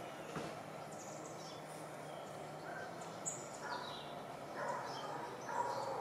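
Tropical forest birds calling: scattered thin, high chirps throughout, with a series of louder, lower calls in the last two seconds.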